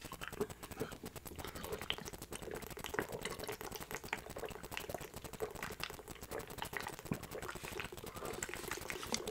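Quiet wet eating sounds: an irregular run of small clicks and smacks from someone eating saucy seafood boil.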